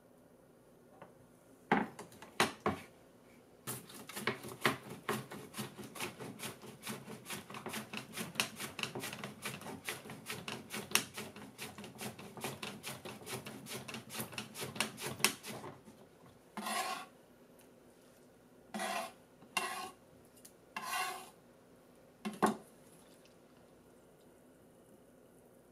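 An onion is pushed back and forth across a plastic mandoline slicer's blade: a few single strokes, then a long run of quick, even rasping strokes, several a second, which stops abruptly. A few short, separate scraping sounds follow.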